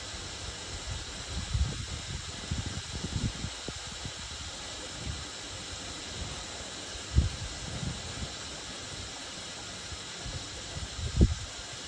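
Whirlpool FSCR 10425 washing machine running a cycle: irregular low thuds from the drum, the loudest about seven and eleven seconds in, over a steady hiss.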